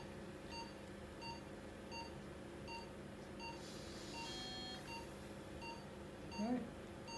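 Anaesthetic patient monitor beeping steadily, about three short beeps every two seconds: the pulse oximeter's beep following the patient's heartbeat during induction of general anaesthesia. A brief hiss with a few higher tones comes about four seconds in.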